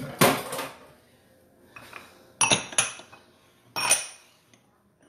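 Dishes and utensils clattering and clinking as a kitchen work space is cleared: a scraping clatter at the start, then three sharp clinks that ring briefly over the next two seconds.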